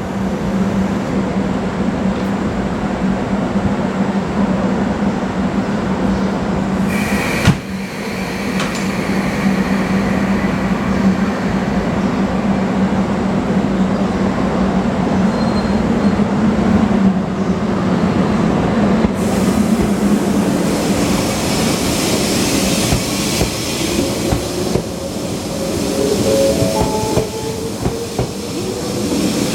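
JR West 381 series limited express electric train moving along the platform, its wheels clacking over rail joints over a steady running hum. There is a sharp click about seven seconds in and a rising whine near the end.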